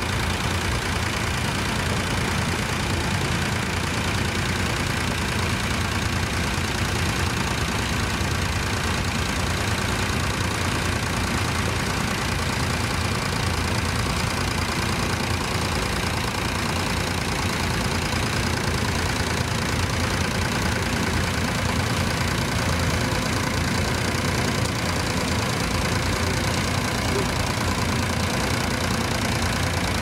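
Fordson Dexta tractor's three-cylinder diesel engine running steadily as the tractor pulls a mounted plough through stubble, with a diesel knock.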